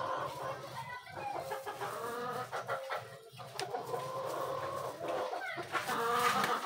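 Chickens clucking, a run of drawn-out calls one after another.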